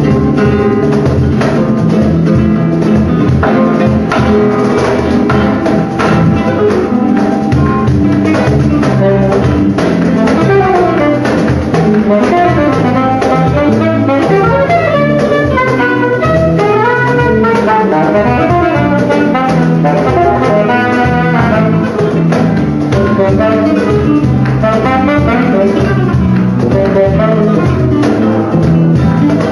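Live flamenco fusion band: a saxophone plays quick rising and falling runs over flamenco guitar and percussion.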